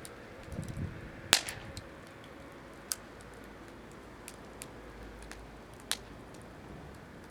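Firewood burning in an open fire grill, crackling with irregular sharp pops, the loudest a little over a second in.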